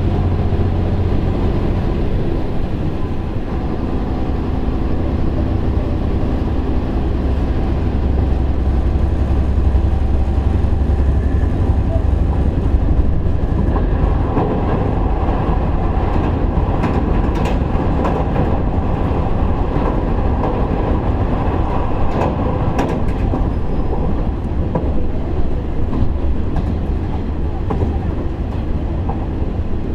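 Running sound inside a KiHa 147 diesel railcar: diesel engine and a steady wheel-on-rail rumble. Sharper clicks and clatter from the wheels come in over the second half.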